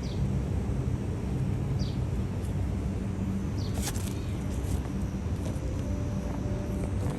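Steady low outdoor rumble, with short, high, falling chirps about every two seconds and a brief sharp sound near the middle.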